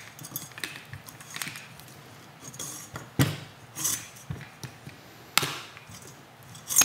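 Handling noise from a wiring harness being pulled back out through a motorcycle handlebar: small clicks and rustles of wires and pin terminals, with a few sharp knocks against the bar.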